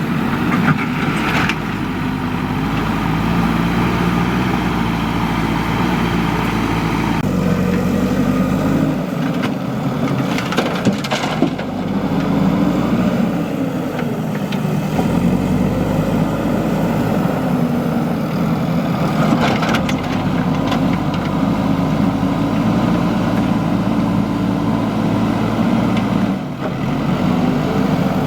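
A backhoe loader's diesel engine runs steadily, its revs rising and falling as it works the hydraulics. Now and then there is a knock of the bucket or load.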